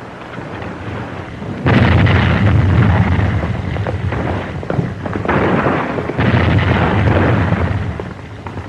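Film sound effect of artillery fire: a deep rumbling boom comes in suddenly about two seconds in, then swells twice more in long, noisy rolls.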